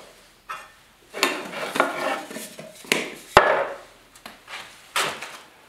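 Workshop handling noise: a series of knocks, clinks and scrapes as tools and containers are handled and set down on a wooden bench, with one sharp click past the middle.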